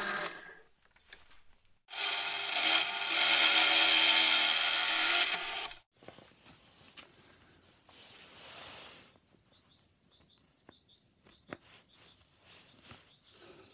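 Bench drill press boring into a laminated wooden disc: the motor's hum with the bit cutting wood, briefly at first, then again for about four seconds before it cuts off suddenly. After it, only faint clicks and rubbing as hands fit a wooden disc with a metal bushing onto a wooden blank.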